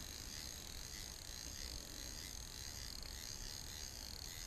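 Faint, steady high-pitched chorus of insects, with no clicks or knocks standing out.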